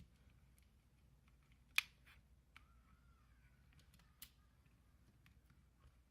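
Near silence broken by a few light clicks and taps of small parts being handled, the sharpest about two seconds in and another about four seconds in, with a faint wavering squeak in between.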